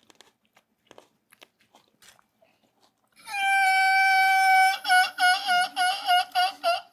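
Faint crunching of chips being chewed. About three seconds in, a loud pitched tone starts, holds steady for about a second and a half, then breaks into short pulsing beeps about three a second.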